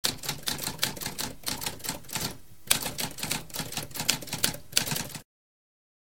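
Typewriter keys clacking in a rapid run of strikes, with a short pause a little over two seconds in, then stopping abruptly about five seconds in.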